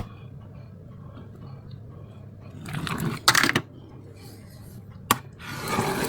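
A sharp click, then a brief clatter of small hard objects a little past halfway, and another sharp click near the end.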